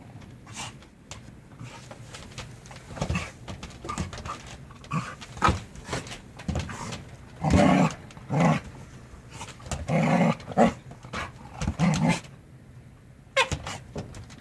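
Jindo dogs play-fighting, growling and snarling in short rough bursts with scuffling in between, the growls loudest and most frequent from about halfway through.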